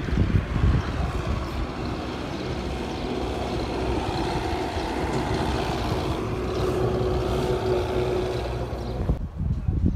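A heavy road vehicle's engine running steadily as it passes, a low drone with a held hum through the middle. It cuts off suddenly near the end.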